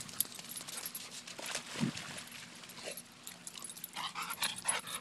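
Pit bull panting, with a quick run of short breaths about four seconds in.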